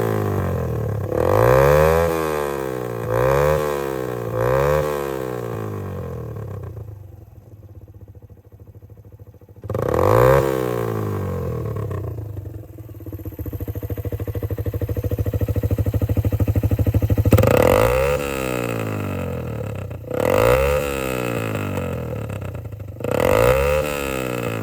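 Suzuki GN125H's single-cylinder four-stroke engine through a straight-pipe exhaust with no silencer, revved in short throttle blips that rise and fall back, three in quick succession at first. Between blips it drops to a quieter idle, and later it is blipped three more times, each rev falling off with the open pipe's suck-back on closing the throttle.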